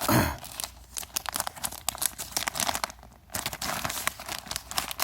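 Product packaging being crinkled and torn open by hand: a dense run of irregular crackles, with a short lull about three seconds in.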